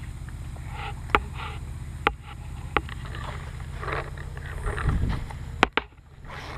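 Scattered single shots from paintball markers, five sharp pops spread unevenly with two close together near the end, over a steady low rumble.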